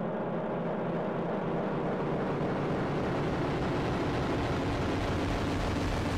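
A sustained drone of steady held tones that slowly swells, with a rushing hiss rising and brightening through it.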